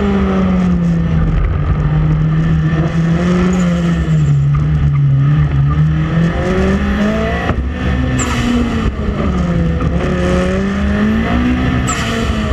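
Nissan 180SX engine heard from on board, revving up and falling back again and again under hard throttle as the car is thrown through tight turns.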